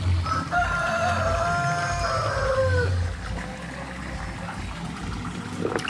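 A rooster crowing once: one long call, held and then falling in pitch at the end.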